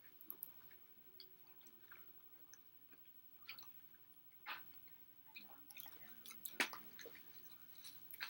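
A person chewing food with the mouth close to the microphone: quiet, scattered wet smacks and clicks, the loudest a little past the middle.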